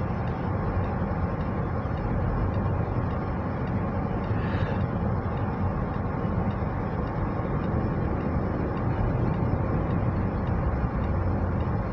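Steady road noise heard from inside a car cruising at highway speed: tyre and engine rumble with wind, and a brief higher hiss about four and a half seconds in.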